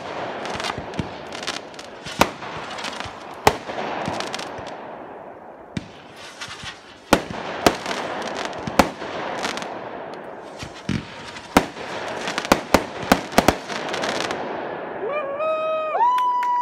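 Aerial fireworks going off: a rapid string of sharp bangs over continuous crackling. Near the end a steady, high whistling tone comes in and holds.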